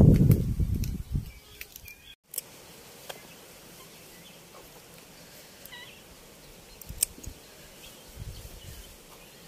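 A low rumbling noise for about the first second, then quiet outdoor ambience with a few light taps, a brief high call about halfway, and a soft thump near the end.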